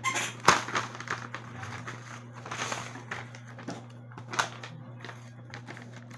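A large sheet of paper with clear tape on it rustling and crackling as it is handled and turned over. There is a sharp crack about half a second in, and shorter crinkles follow in the middle and at about four seconds.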